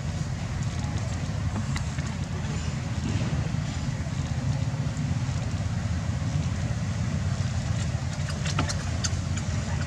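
Steady low rumbling background noise with a few short clicks near the end.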